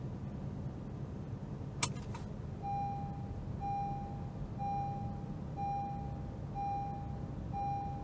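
A seat belt buckle unlatches with a sharp click about two seconds in. Then the car's seat belt reminder chime beeps six times, about once a second, warning that the driver's belt is unfastened while the car is moving. The low hum of the moving car runs underneath.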